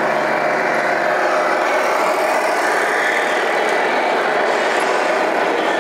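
Simulated diesel engine sound from the sound module of a radio-controlled semi-truck, running steadily over the constant hubbub of a busy hall; a low hum stops about a second in.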